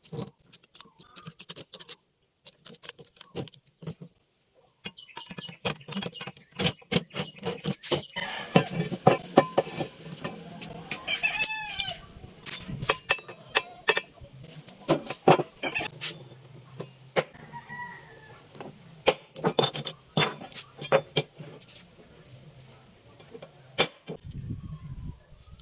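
Metal parts being handled and fitted: many irregular clicks, taps and knocks over a low hum, with one short pitched call with a rise and fall about eleven seconds in.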